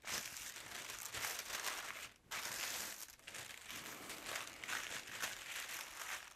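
Thin paper sewing-pattern pieces rustling and crinkling as they are handled and folded up by hand. There is a brief pause about two seconds in.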